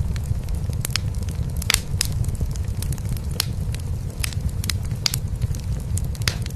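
Wood fire crackling in a fireplace, with sharp irregular pops, over a steady low purring rumble from a cat.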